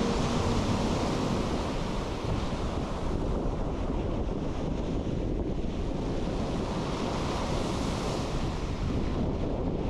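Surf breaking and washing up a pebble beach, the rush swelling as each wave runs in, with wind buffeting the microphone as a steady low rumble.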